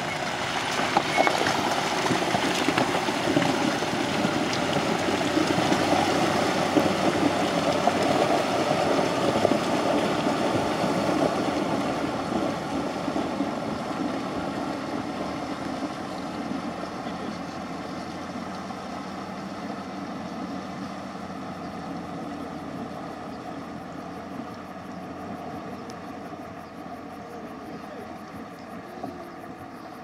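A 4x4 van's engine running as the van drives into a river and wades across it, with water churning around the wheels. The sound fades steadily as the van moves away.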